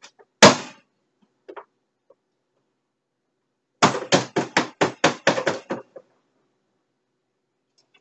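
A juicer part being rapped against a hard edge to knock the pulp off: one loud knock, then a quick run of about nine knocks, four to five a second.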